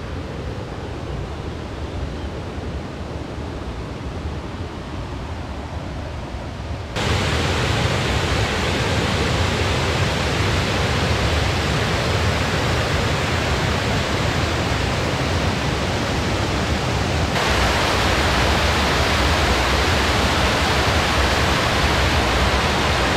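Water spilling over a weir's gates and down its stepped spillway: a steady, even rushing. It grows louder about seven seconds in and shifts again about two-thirds of the way through.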